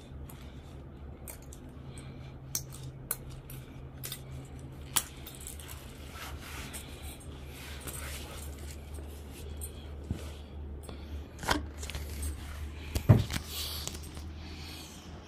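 Light clicks and clinks of small metal items handled close to the microphone, over a steady low hum. A sharper knock comes near the end.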